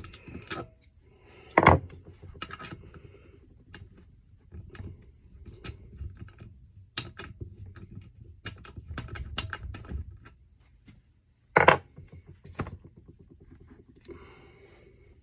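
Hand tools and parts being handled on a bench: scattered clicks and knocks, with a run of quick clicks in the middle and two loud sharp thumps, one near the start and one about two-thirds of the way in.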